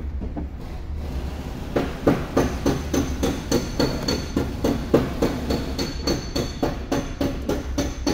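Hammer striking metal in quick, even blows, about three a second with a metallic ring, starting about two seconds in.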